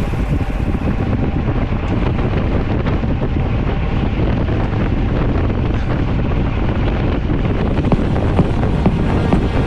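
Wind buffeting the microphone of a camera on a moving bicycle: a steady, heavy rushing noise.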